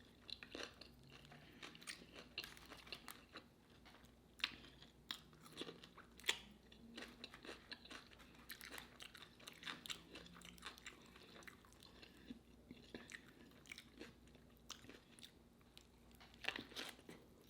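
A person chewing crunchy pickle food close to the microphone: faint, irregular wet crunches and mouth clicks, a little busier near the end.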